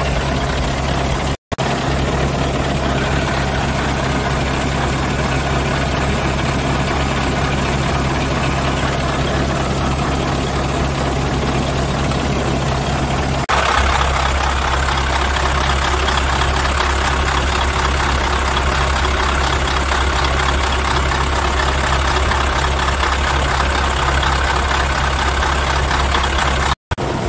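Scania R144's 14-litre V8 diesel idling steadily. It gets slightly louder about halfway through, and the sound cuts out for an instant twice.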